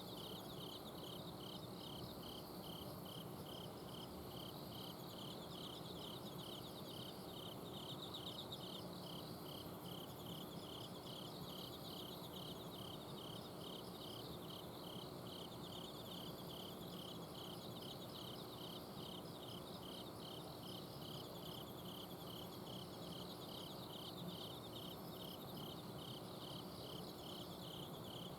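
Autumn crickets chirping at night in a chorus. One sings a regular pulsed chirp about twice a second and others trill higher. Under them runs the steady low hum of an air-conditioner outdoor unit.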